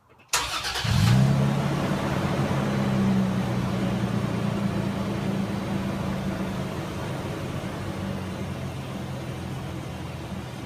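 2015 Toyota Tacoma's 4.0 L V6 on its stock exhaust starting up: a short burst of cranking as it catches, then a steady idle that slowly gets a little quieter.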